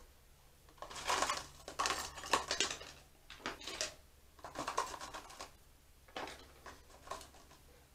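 Small metal fixing screws and securing tabs clinking and rattling in a plastic tub as they are rummaged through and picked out, in irregular clusters of clicks.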